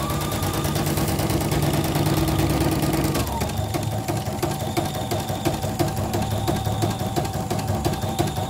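CNY portable computerized embroidery machine stitching at speed: the needle bar strikes rapidly and evenly over the motor's whine. The whine rises slightly at the start and drops to a lower, steady pitch about three seconds in, after which the stitching settles into an even repeating rhythm. The machine is running smoothly with no jamming.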